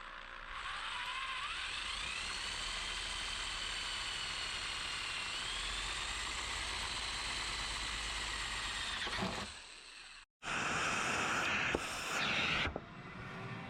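Power drill running with a regular 11 mm bit working through thin roof sheet metal. The motor whine rises in pitch about a second in and holds steady. It stops near ten seconds, and a second, louder stretch of drilling noise follows.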